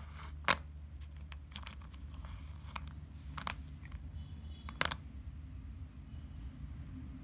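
Thick slate pencils clicking and knocking against one another as they are picked up and handled, in scattered light clicks with two sharper ones about half a second in and just before five seconds.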